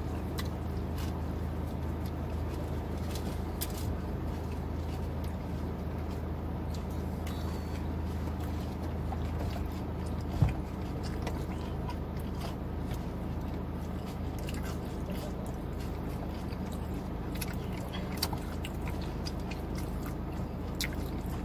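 A person biting into and chewing a mouthful of burrito, with small wet clicks from the mouth over a steady low hum. One sharp thump about ten seconds in.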